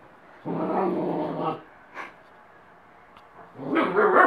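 White Swiss shepherd puppy vocalizing: a held call lasting about a second, then a louder, rougher one near the end.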